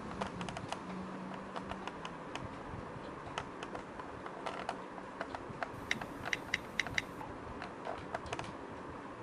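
Quick, irregular light clicks of keyboard typing, with a denser, louder flurry of taps about six to seven seconds in, over a low steady hiss.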